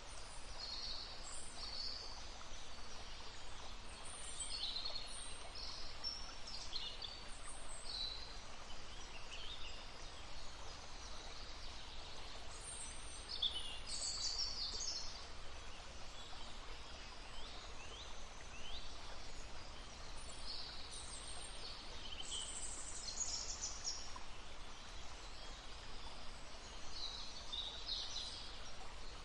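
Several small songbirds chirping and trilling in quick high-pitched phrases over the steady babble of a brook.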